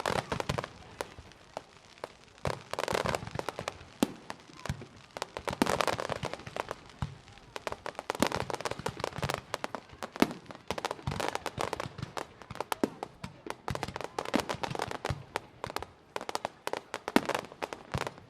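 Fireworks display: a dense, irregular run of sharp bangs and pops from bursting shells and crackling effects, with a few louder clusters.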